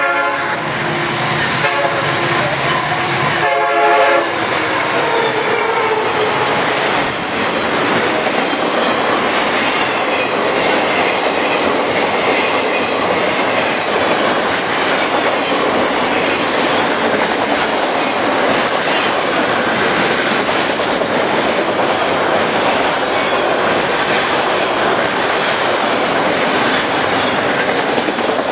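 Freight train at a grade crossing: the locomotive's air horn sounds at the start and again about three seconds in as it reaches the crossing. Then the autorack cars roll past close by with a steady rumble and clickety-clack of wheels over the rail joints.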